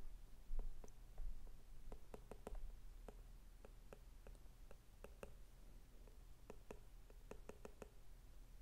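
Stylus tip clicking and tapping irregularly on a tablet's glass screen while handwriting, with a few soft low thumps in the first three seconds and a steady low hum underneath.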